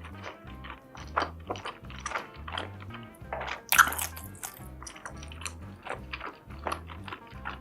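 Close-up eating sounds: wet chewing with many small sharp clicks and bites, and one louder crunch about four seconds in. Background music with a steady low beat plays underneath.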